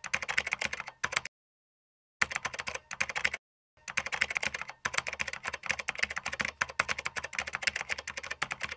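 Typing sound effect: fast, irregular keystroke clicks in runs. It breaks off into silence twice, for about a second near the start and for half a second a little later.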